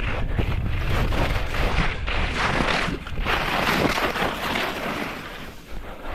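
Wind buffeting the microphone of a helmet camera on a fast-moving skier, with ski edges scraping over hard, chopped snow in swelling hisses turn by turn. The noise dips briefly near the end.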